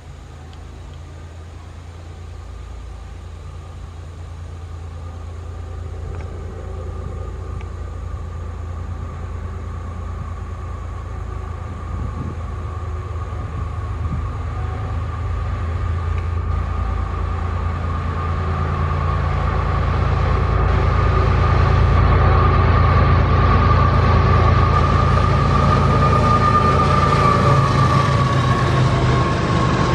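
Two GE diesel locomotives leading a freight train approach and pass. Their engine rumble grows steadily louder throughout, with a steady high whine that strengthens alongside it and drops slightly in pitch as the locomotives go by near the end.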